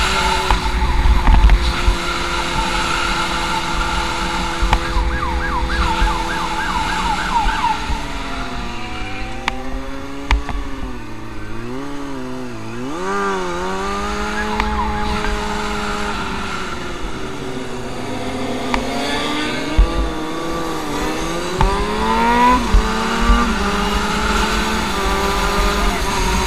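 Motorcycle engine running hard, its pitch dropping and climbing again and again as the rider slows and accelerates through the gears, with a police siren wailing and yelping over it and wind rumbling on the microphone.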